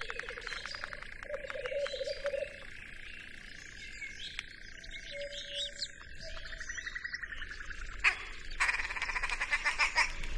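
Eerie, horror-themed sound design: a steady high tone under rapid clicking pulses and short chirping, creature-like calls, thickening into a dense, fast pulsing about eight seconds in.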